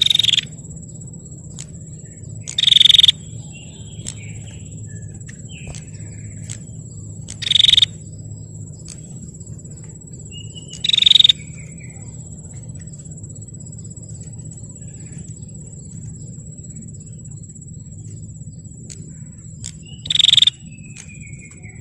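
Prinia (prenjak) calling: five short, loud, buzzy bursts spaced several seconds apart, with faint falling chirps after some of them. A steady high-pitched whine and a low hum run underneath.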